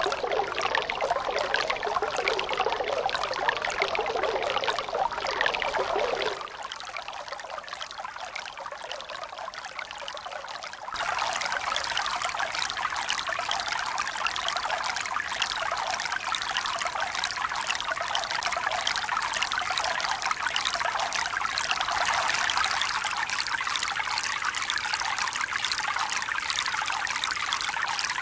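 Steady running, splashing water. About six seconds in it drops abruptly to a quieter, duller stretch, and about eleven seconds in it comes back louder and hissier.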